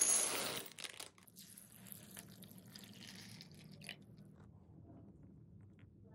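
Dried chickpeas poured from a plastic bag into a glass bowl: a dense rattling clatter in the first second that thins into scattered clicks over the next few seconds.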